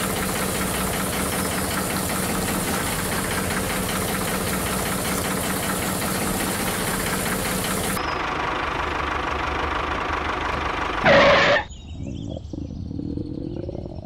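Small electric motor of a model water pump running steadily, with water pouring and splashing into a miniature pond. About eight seconds in it gives way to a quieter, steadier motor hum, broken by a short loud burst of noise about three seconds later.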